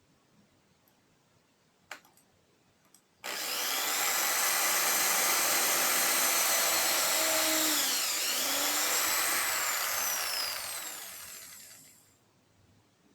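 Hand drill driving a 7-inch circular saw blade on a homemade table saw: it starts suddenly after a couple of faint clicks and runs at a steady speed. It slows briefly under load about five seconds later, then winds down and fades out near the end.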